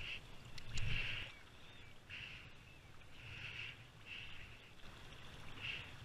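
Kayak paddle strokes: the blade dips and splashes in calm water about once a second as the kayak is paddled along.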